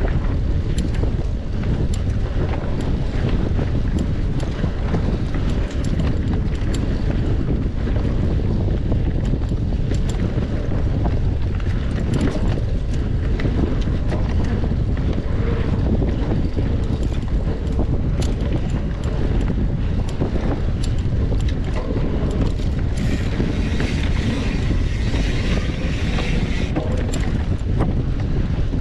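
Wind buffeting the microphone of a camera on a mountain bike ridden at speed, a steady loud rumble with scattered sharp clicks and knocks. A brighter hiss rises for a few seconds near the end.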